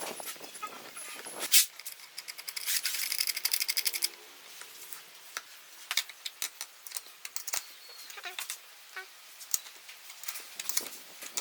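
Small hard objects being handled in a workshop: scattered clicks and knocks, with a sharp click about a second and a half in and a quick rattle of about ten ticks a second for just over a second near the three-second mark.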